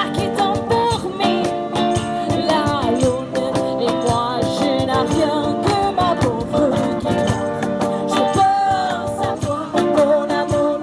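Live street band music: a cajon keeps a steady beat under electric and acoustic guitars, a harmonica and a woman singing.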